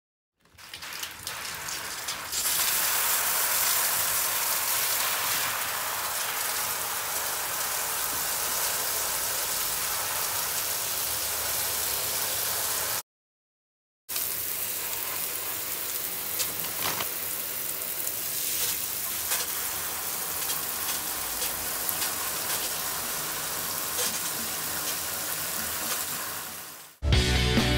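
Water running onto a pile of dissolvable packing peanuts in a basin, a steady splashing hiss as the peanuts break down. It cuts out for about a second in the middle, then carries on, and music comes in just before the end.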